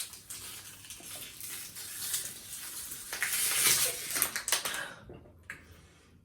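Crinkling and crackling of a plastic water bottle being handled and squeezed while someone drinks from it, loudest about three to five seconds in, then it dies down.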